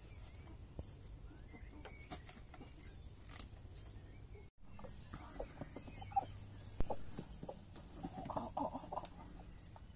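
Hen clucking from her straw-lined nest box as a hand reaches under her for eggs, with short calls bunched near the end, over the light rustle and clicks of straw.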